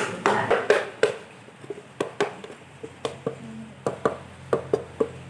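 Small claw hammer tapping on a thin wooden speaker box, light sharp knocks about three a second. A few rougher scraping strokes come first, in the first second.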